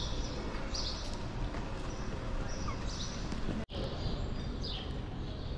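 Outdoor background noise: a steady low rumble with a few short, high chirps scattered through it. The sound cuts out completely for an instant about two-thirds of the way in.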